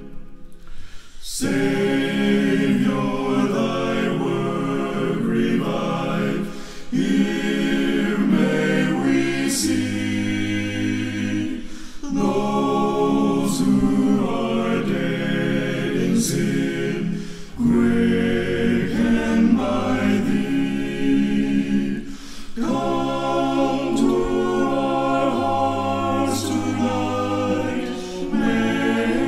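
Unaccompanied male vocal group singing a sacred song in harmony over a low bass part. It goes line by line, with a short break between phrases about every five seconds.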